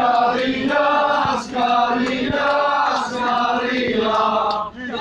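A crowd of men chanting a protest slogan together, in repeated phrases about a second and a half long with short breaks between them.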